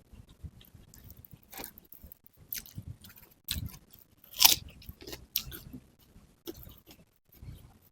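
Close-miked eating sounds of nasi pecel and sate kikil (beef skin and tendon satay) being chewed, with irregular sharp mouth clicks and smacks. The loudest bite comes about four and a half seconds in.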